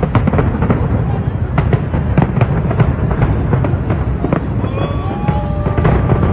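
Big fireworks display going off in a continuous barrage: rapid bangs and crackles over a deep, rolling rumble.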